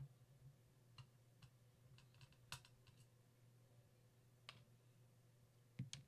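Faint, scattered small clicks and ticks of a Phillips screwdriver working small screws out of the SSD's mounting plate, about eight in all with the strongest near the middle, over a low steady hum.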